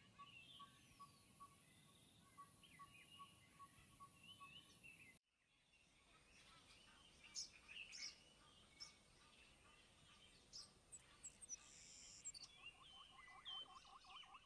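Faint wild ambience of scattered bird chirps and short calls. A thin high hiss in the first few seconds cuts off suddenly about five seconds in, and near the end comes a quick run of repeated rising calls.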